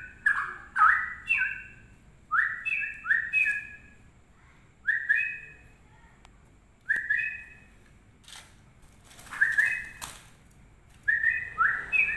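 Straw-headed bulbul (cucak rowo) singing: phrases of clear whistled notes, each a quick upward sweep followed by level notes, repeated every second or two with short pauses. A brief rustling noise comes about three-quarters of the way through.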